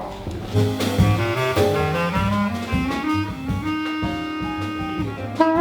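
Jazz sextet playing a neo-tango passage: saxophones over double bass and drum kit. A line climbs step by step in the low register, then the horns hold a long chord, with a brief break just before a new phrase near the end.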